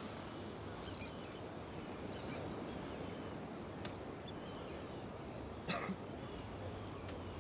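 Steady wind and water noise on an open pier, with a high hiss that stops abruptly about three and a half seconds in as line runs off a spinning reel after a cast. Faint bird chirps come through, and there is one short, sharp sound about six seconds in.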